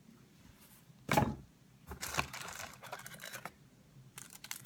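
Plastic packaging crinkling and tearing as a small collectible pin in its wrapper is handled and opened, in bursts from about two seconds in and again near the end. A brief low vocal sound comes about a second in.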